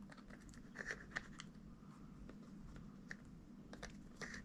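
Faint, scattered small clicks and taps of close-up handling work as adhesive remover is applied along the sides of a laptop battery, a few clustered about a second in and more near the end.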